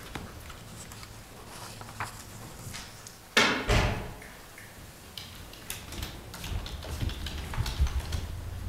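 A door bangs shut with a single thud about three seconds in, followed by a scatter of light clicks and rustles as someone walks in.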